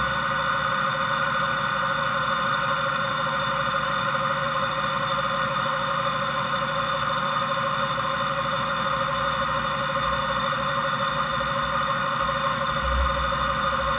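Fadal VMC5020A CNC vertical machining center running without cutting: a steady machine whine from the spindle head with coolant spraying onto the table, and a brief low rumble near the end.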